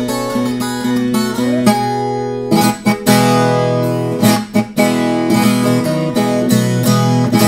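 Rozini RV 155 viola caipira, a Brazilian ten-string guitar with steel strings in five double courses, being played: ringing picked notes with some slides, then hard strummed chords from about two and a half seconds in. Its sound is really heavy.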